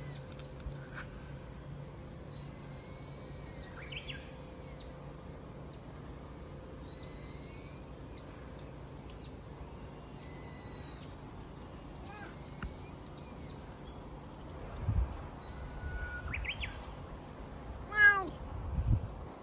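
A black cat meowing a few times in the last few seconds, the loudest call about a second from the end. Birds sing repeated short high phrases throughout.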